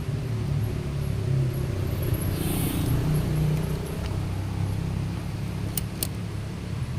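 Steady low rumble of road traffic on the bridge overhead, with a brief hiss swelling about two and a half seconds in and two sharp clicks close together near the end.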